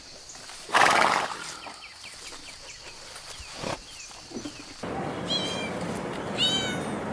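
A kitten meowing twice in the second half, with short high-pitched meows. Earlier there is a brief loud noisy burst about a second in.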